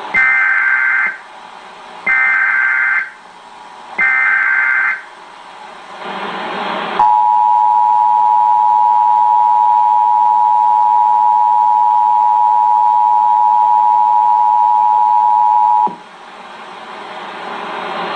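Emergency Alert System signal as broadcast on TV: three one-second bursts of the two-pitch SAME header data screech, about a second apart, then the steady two-tone EAS attention signal held for about nine seconds. The attention signal cuts off sharply into a rising hiss.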